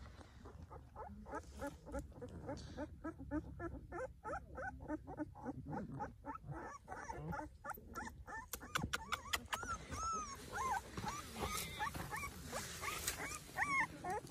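Puppies whimpering and yelping: a quick run of short cries several times a second, turning to higher whines that rise and fall in the second half.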